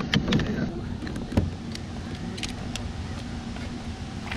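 Knocks and clicks of fishing gear being handled on a kayak, with the sharpest knock about a second and a half in, over a steady low hum.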